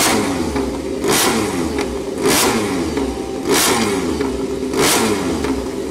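Repsol Honda MotoGP racing motorcycle's V4 engine revved in sharp blips about every 1.2 seconds, the pitch sweeping back down between them.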